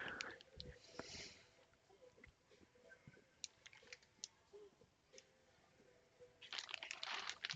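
Near silence with a few faint clicks, then a soft rustle near the end as the packaged jersey is handled.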